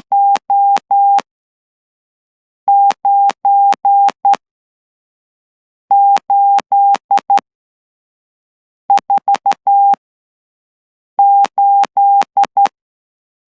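Morse code keyed by hand on a straight key at about 12 words per minute, heard as a steady mid-pitched sidetone beep from a CW keying interface. Five characters of dits and dahs come about three seconds apart, each with five elements as numerals have, and every element starts and stops with a sharp click.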